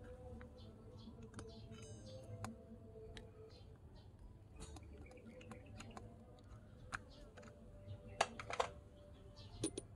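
Small fire in a miniature brick stove crackling under an empty wok: scattered light clicks and pops, with the loudest cluster a little after eight seconds.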